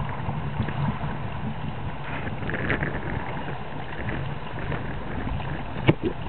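Wind buffeting the microphone over water rushing and splashing along the hulls of open canoes under sail in a steady breeze. A couple of sharp knocks near the end.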